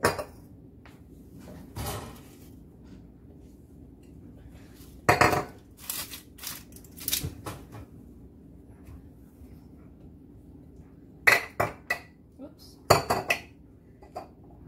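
Kitchenware clinking and clattering as it is handled and set down on a counter. The short knocks come in several bunches, loudest about five seconds in and again near the end.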